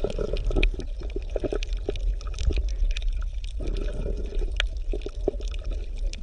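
Underwater ambience: a steady low water rumble with gurgling and many scattered small crackling clicks.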